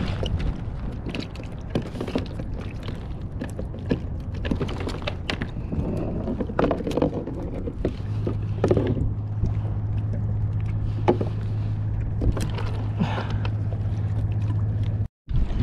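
Wind rumble and water sounds around a fishing kayak, with scattered knocks and clicks. A steady low hum comes in about halfway through, and the sound cuts out for a moment near the end.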